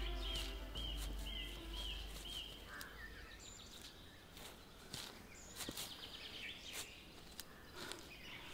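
Film score fading out over the first two seconds or so beneath a repeating chirp about twice a second. After that, a quiet forest ambience of scattered rustles and small twig snaps in the undergrowth, with an occasional faint bird call.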